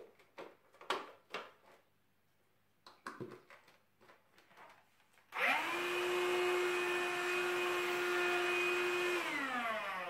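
A few clicks and knocks, then about halfway through a CLEANmaxx cordless cyclone hand vacuum is switched on and runs with a steady high whine for about four seconds. It is switched off near the end, and its motor winds down with falling pitch.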